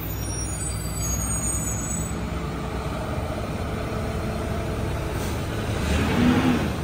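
New Way rear-loader garbage truck's diesel engine running steadily, with a loud hiss of air brakes about six seconds in.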